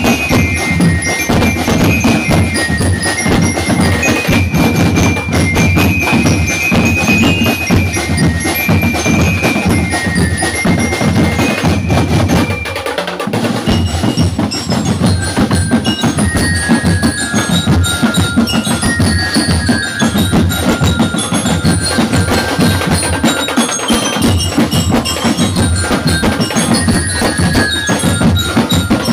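Drum and lyre band playing: upright bell lyres ring out a melody over a dense snare and bass drum beat. The drums briefly drop out about halfway through, and after that the melody runs lower.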